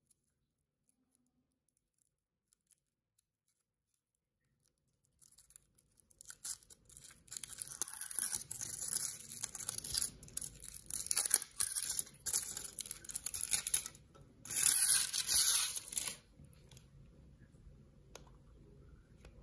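Thin foil wrapper of a Kinder Surprise chocolate egg being peeled and torn off by hand. The crinkling and rustling starts about five seconds in and comes in short, irregular bursts, with one longer stretch of crinkling before it stops a few seconds before the end. A single faint crack near the end comes as the chocolate shell is split apart.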